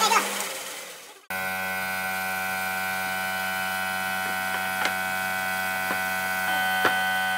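A band saw's blade cutting through a pine board, the sawing noise fading out over the first second. Then, from an abrupt change, a steady hum of several fixed tones, with a few light knocks of wooden frame pieces being handled.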